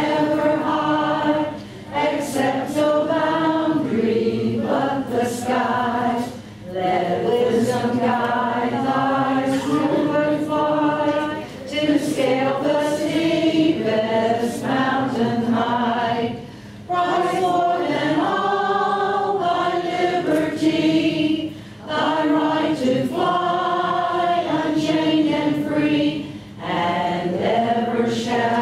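A roomful of men and women singing together from song sheets, in held phrases with a short breath pause about every five seconds.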